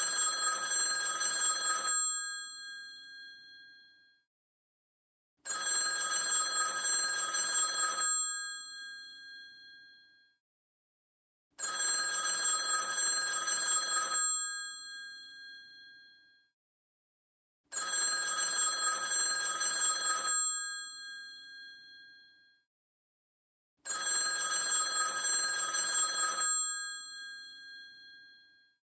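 Vintage telephone's mechanical bell ringing in a regular cadence: five rings, each about two and a half seconds long and fading out, coming about every six seconds with silence between.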